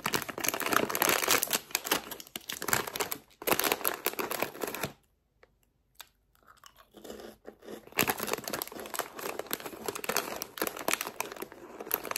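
Crinkling of a foil snack wrapper, a single Crayon Shin-chan biscuit packet, handled and pulled at the top to tear it open, in two spells of crackling with a brief pause about five seconds in.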